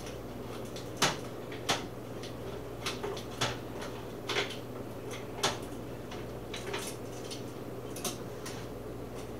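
Light metal clinks and taps, about eight scattered at irregular intervals, as a whole chicken is worked loose from a wire beer-can holder sitting in a metal sheet pan. A low steady hum runs underneath.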